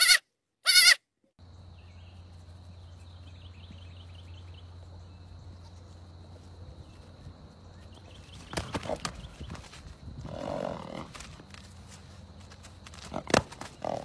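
Goat kid bleating twice, short loud calls in the first second and a half. After that a much quieter stretch follows, with a steady low hum, a few knocks and fainter short calls about two-thirds of the way through and near the end.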